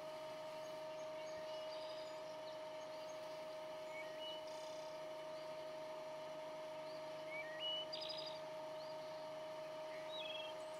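Faint steady hum of a lathe spinning a wooden peg during sanding, with birds chirping in short rising and falling notes; the loudest chirps come about three quarters of the way through.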